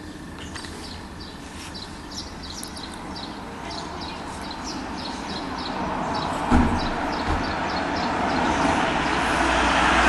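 A road vehicle approaching, its noise swelling steadily louder, with repeated short high chirps throughout and a single low thump about six and a half seconds in.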